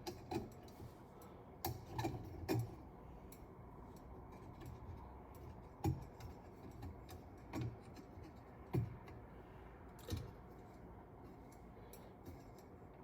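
Scattered light clicks and taps of glass ceiling-fan light shades and their metal fittings being handled and fitted to the light kit. About a dozen come at irregular intervals, the sharpest near the start and around six and nine seconds in.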